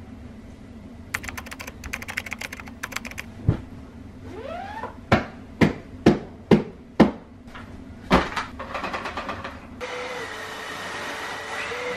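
Everyday household handling sounds. There is a quick run of clicks like typing on a keyboard, then a thump, five sharp knocks about half a second apart, and another knock followed by clicks. About ten seconds in, a steady hiss with a faint whine begins.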